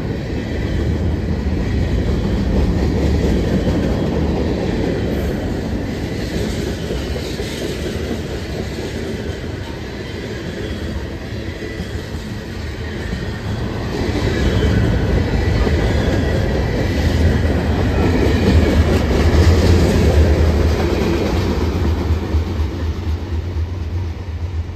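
Freight cars of a Norfolk Southern manifest train rolling past, steel wheels running on the rails. The sound swells in the last third and eases off near the end.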